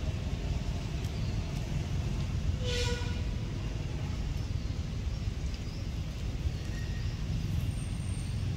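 A steady low outdoor rumble, with one short pitched call about three seconds in and a few faint high chirps.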